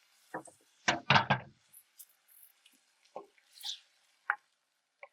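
Chicken broth poured into a cast iron pot of rice: short splashes and drips of liquid, strongest in the first second and a half, then a few scattered light knocks and drips.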